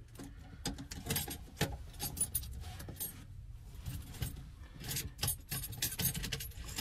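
Small metal parts clinking and rattling, with irregular clicks and taps, as the faucet's mounting brackets are fitted and tightened from under the sink.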